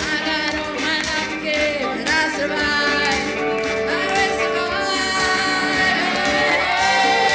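Live amateur music: women singing into microphones over an electric guitar, played through a PA speaker.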